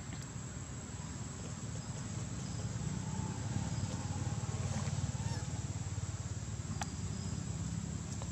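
Outdoor forest background: a steady low rumble under a thin, steady high-pitched whine, with one faint click about seven seconds in.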